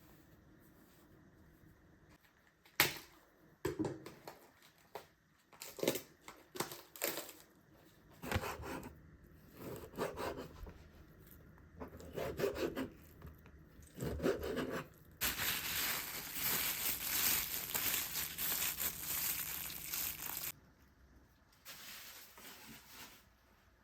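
Household items being handled: a run of light knocks and short rustles, then about five seconds of steady hiss that stops suddenly.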